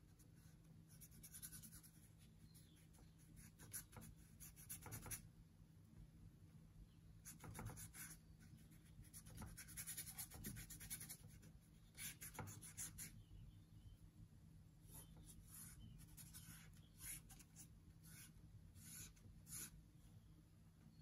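Paintbrush scrubbing oil paint onto a painting board in faint, scratchy strokes that come in short clusters, over a low steady hum.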